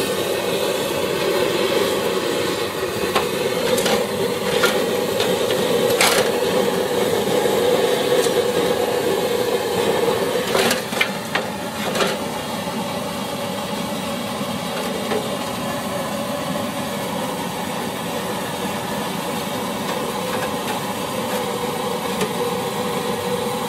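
Petrol burner of an NVA Kleinküche field kitchen burning with a steady rushing noise, freshly lit. Several sharp metal knocks in the first half as aluminium cooking pots are set into the stove's openings.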